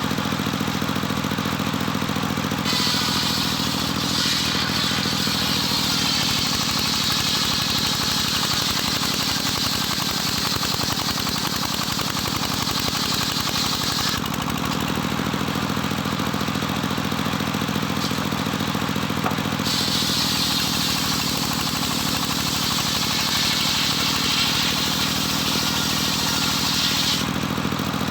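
Homemade engine-driven circular sawmill running steadily. Twice, for about ten seconds each time, the blade rips lengthwise through a jetos log with a high hissing whine, and the engine's note sags under the load of the cut.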